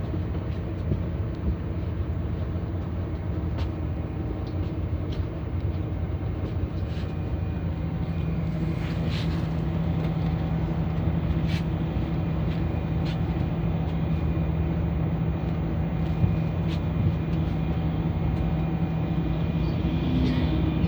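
Bus engine running steadily, heard from inside the passenger cabin: an even low hum with a constant low drone and a few faint clicks and rattles.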